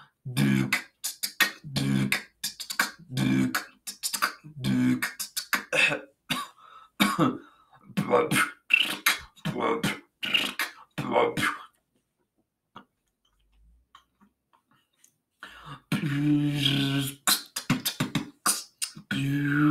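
A person beatboxing: hummed bass-drum notes about every second and a half, with mouth clicks and hissing snare and hi-hat sounds between them. It breaks off for a few seconds about twelve seconds in, then starts again with a longer hummed bass run.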